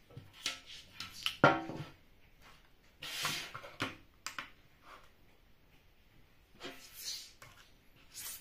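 Scattered knocks, clicks and rustles of hands handling a heavy RC electronic speed controller with its wires and a small digital scale on a tabletop, the loudest a knock about a second and a half in. Near the end the controller is set down on the scale's metal platform.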